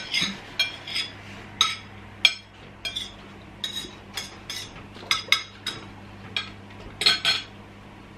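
Knife and fork clinking against a ceramic dinner plate while food is cut, in about twenty sharp, irregular clinks. A low steady hum runs underneath from about a second in.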